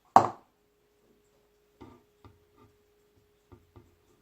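A sharp knock just after the start, then a few softer taps and knocks from things being handled on a table, over a faint steady hum.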